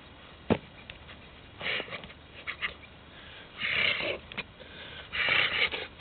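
Several short, forceful breaths, the longest about four and five and a half seconds in, with a single sharp snap about half a second in.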